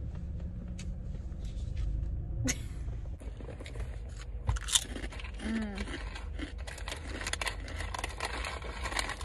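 Crunchy snack being bitten and chewed close to the microphone, a dense run of crackling crunches starting a couple of seconds in, over a steady low rumble inside the car.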